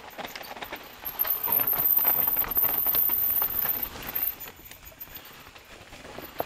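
Mountain bike rolling fast over rough, rocky trail: a dense run of knocks and clatter from the tyres and bike, loudest for about three seconds starting a second in.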